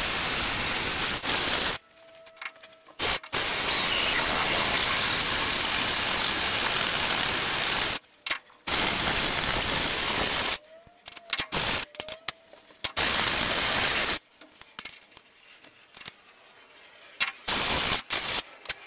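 Cordless drill spinning a step drill bit (unibit), hogging out a small pilot hole in a metal frame tube to about 3/4 inch. It runs in several pushes of two to five seconds with short pauses between, and in a few short bursts near the end.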